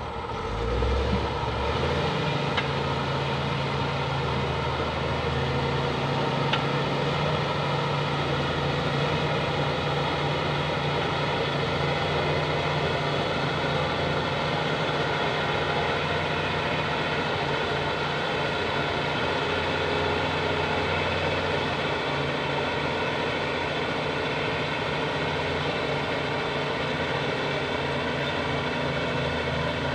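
Bulldozer's diesel engine running steadily under work, a low engine hum with a broad mechanical rumble over it.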